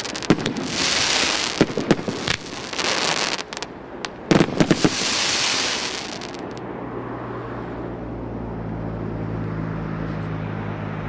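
Fireworks battery (multi-shot cake) firing: sharp bangs, each followed by a loud crackling hiss, stopping about six and a half seconds in. A steady low hum remains after it.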